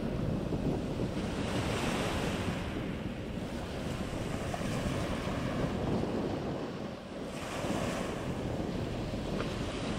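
Small waves breaking and washing on a shingle beach, with wind buffeting the microphone. The surf rises and falls every few seconds, with a brief lull about seven seconds in.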